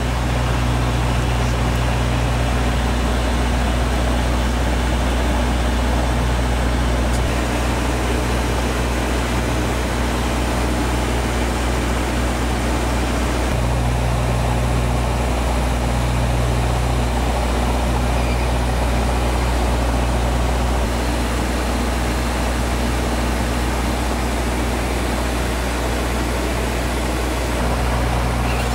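Dash 8-200's twin Pratt & Whitney Canada PW123 turboprops and propellers droning steadily in flight, heard from inside the cockpit: a rushing noise over several low steady hum tones. The low hum shifts slightly a few times.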